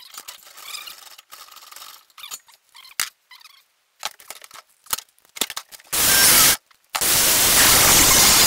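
Threaded rod being cut with a power cutting tool: a few seconds of clicks and handling of metal parts, then a short loud burst of cutting about six seconds in and a longer, loud cut about a second later.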